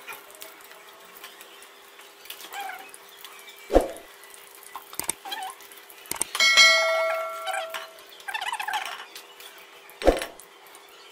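Steel tongs knocking and clinking against an aluminium kadhai as fried nuggets are lifted out of the oil, with two sharp knocks about four seconds in and near the end. Midway a bright bell-like chime rings for about a second and a half; it is the loudest sound and is typical of a subscribe-button notification sound effect.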